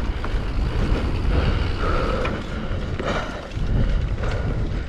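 Mountain bike riding down a rough trail: the tyres rumble over dirt and rocks, the bike rattles and knocks, and wind hits the microphone.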